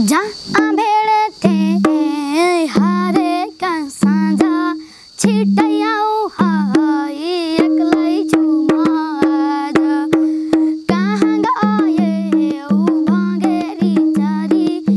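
A boy singing a Nepali folk song while playing the madal, a two-headed barrel hand drum. The drum keeps a steady rhythm of deep and higher strokes under his voice, which comes in about half a second in.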